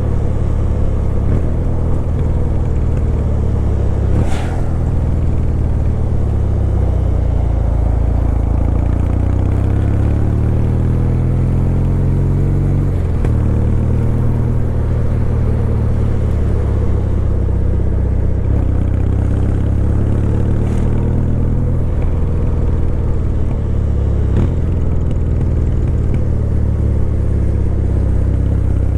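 Kawasaki W800's air-cooled 773 cc parallel-twin engine running under way, heard from the rider's position. The engine note climbs slowly, then drops sharply about midway as the rider shifts up a gear, and drops again later. There is a brief click about four seconds in.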